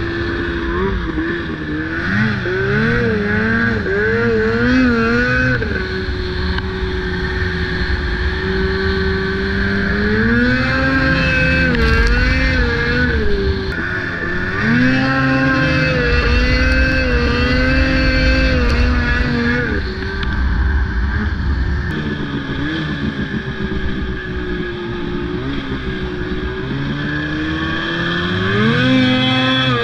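Snowmobile engine running as the sled is ridden over snow, its pitch climbing and dropping several times as the throttle is opened and eased off, with steadier low stretches between.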